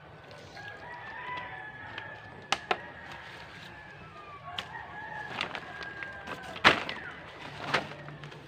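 A rooster crowing repeatedly in the background, with clucking. Several sharp clicks and knocks cut through it, the loudest about two-thirds of the way in, from a small trowel working soil and a plastic water bottle being handled.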